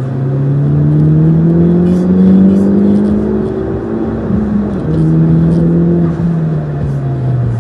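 A vehicle engine pulling hard, its pitch climbing for about two and a half seconds. About five seconds in the pitch drops a step, as at a gear change, then it sinks slowly as the engine eases off.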